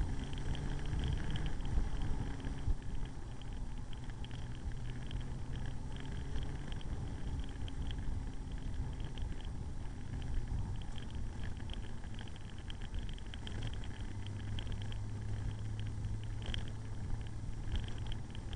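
Motorcycle engine running at low road speed, heard from the bike itself, a steady low hum whose note drops and evens out about three-quarters of the way through.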